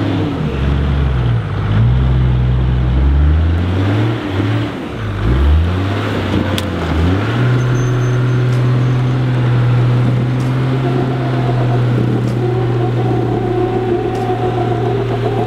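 Chopped Toyota LandCruiser 4WD's engine revving up and down as it crawls through deep ruts. About seven seconds in it settles to steady revs, and a higher whine joins it a few seconds later.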